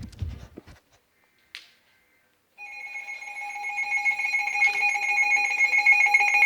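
Emergency alert attention tone sounding from about two and a half seconds in: two steady pitches held together with a rapid pulse, growing louder.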